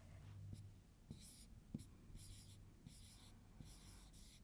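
Marker pen writing on a whiteboard: several short, faint scratchy strokes as a word is written.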